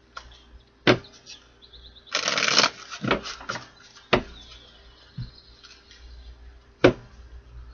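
Tarot cards being shuffled by hand: a short rustling flurry about two seconds in, with a few sharp clicks of cards spread across the rest.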